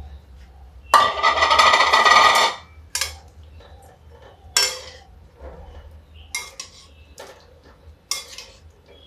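A metal ladle scraping and knocking against an aluminium kadhai while stuffed bitter gourds are turned in oil. There is one long, loud ringing scrape about a second in, then a run of separate sharp clinks.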